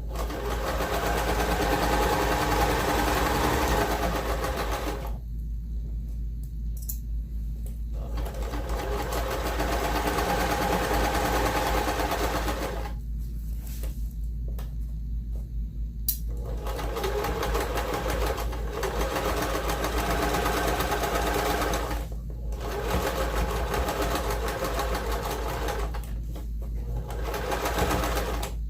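Electric sewing machine stitching a hem in fabric. It runs in stretches of several seconds, stopping briefly between them four times and then starting up again.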